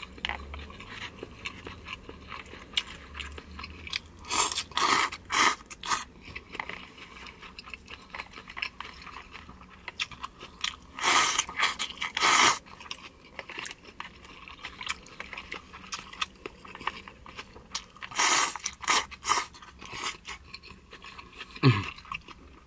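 Pho noodles slurped and chewed close to the microphone: loud slurps come in three spells, the longest about halfway through, with soft chewing and crunching between.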